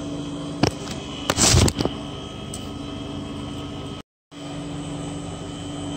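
Steady machine hum of a kitchen appliance or fan. A click sounds just under a second in, then a brief thump a little over a second in, the loudest moment. The sound cuts out for a split second at an edit about four seconds in.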